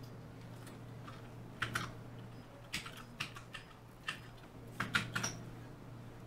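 Computer keyboard being typed on in a few short runs of keystrokes, the clicks coming in small clusters with pauses between.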